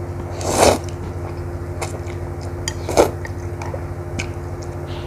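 Close-up eating sounds: Indomie instant noodles slurped in twice, about half a second and three seconds in, with small wet chewing clicks between, over a steady low hum.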